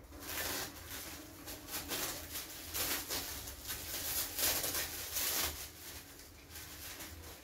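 Plastic packaging crinkling and rustling in irregular bursts as it is pulled open and unwrapped by hand.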